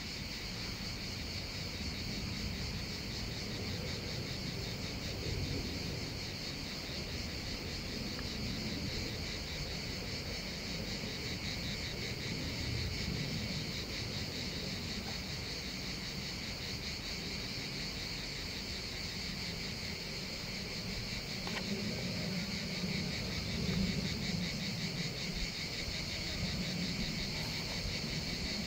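Insects chirring steadily in a high, fast-pulsing drone, with a low rumble underneath.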